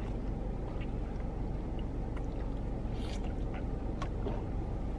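Steady low hum inside a car cabin, with a few faint, short clicks.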